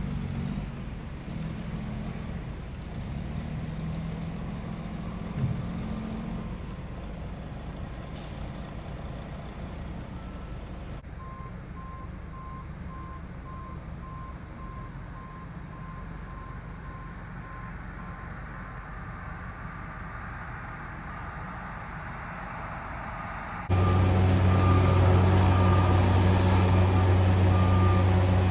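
Heavy cleanup machinery working: a low diesel engine hum, then a backup alarm beeping steadily for several seconds. About 24 seconds in, the much louder, steady drone of the diesel engines of a tracked excavator and dump truck takes over.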